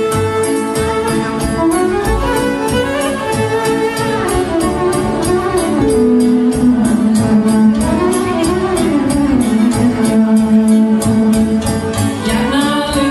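Live Romanian folk dance music: a fiddle plays a lively, sliding melody over a backing band's steady beat.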